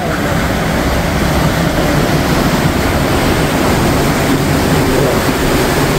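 Steady rush of a fast mountain river tumbling over rocks in white-water rapids.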